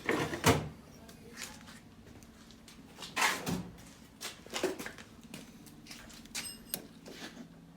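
Scattered knocks and clicks of small tools and parts being handled on a workbench, with a louder clatter about three seconds in and a short high tone near the end.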